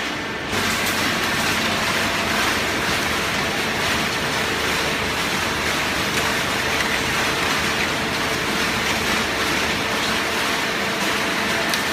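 Conveyor belt feeding a cardboard baler, running steadily with a rushing, rattling noise and a faint steady hum. It gets louder about half a second in, then holds even.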